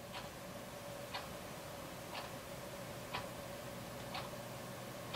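A clock ticking faintly, once a second, over a low steady hum.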